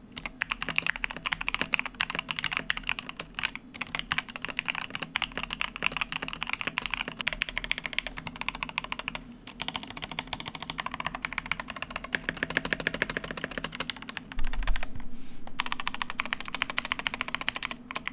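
XVX Coral Sea 84% mechanical keyboard, tape-modded and foam-modded, with red switches and XDA-profile keycaps, typed on fast and continuously, with a couple of brief pauses. The spacebar ticks.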